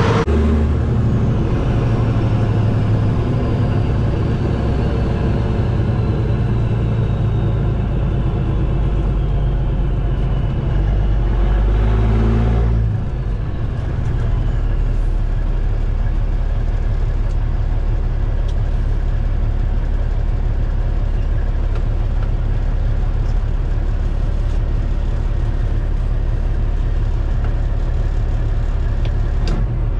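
A Kenworth T800's Caterpillar C15 diesel engine running steadily as the loaded heavy-haul truck drives, a continuous low drone with a faint whine that falls slowly in pitch over the first ten seconds. A little before halfway the sound changes abruptly to a steadier low rumble as heard from inside the cab.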